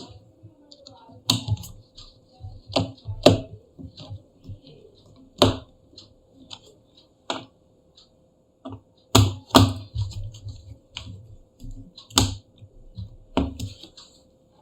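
Irregular sharp clicks and taps, about ten of them and some in quick pairs, from a small Phillips screwdriver and screws against a laptop's bottom case as the case screws are driven in.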